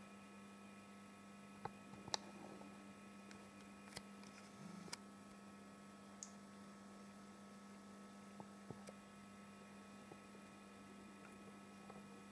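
Near silence: a faint steady electrical hum with a few soft, scattered clicks.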